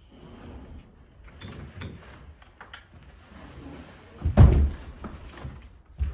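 Upholstered sofa being slid and bumped down carpeted stairs: scattered scrapes and knocks, with one heavy thud about four seconds in.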